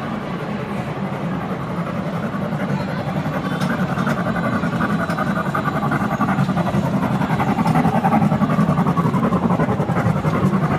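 Miniature ride-on train running along its track, getting louder as it approaches and passes close by.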